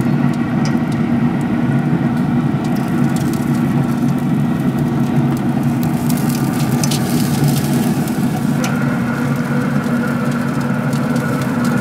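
Steady hum of a Traeger pellet grill's fan running, with scattered clicks and crackles as lamb chops are turned over on the hot grate with tongs.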